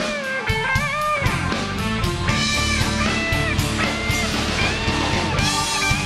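Electric guitar playing a lead melody in an instrumental break over a band with a steady beat, holding long notes with bends and vibrato.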